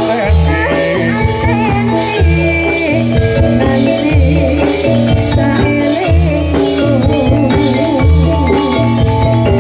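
Javanese gamelan music for a jathilan horse trance dance: mallet-struck metallophones play a busy repeating melody over a deep low part that sounds in stretches of about a second at a time.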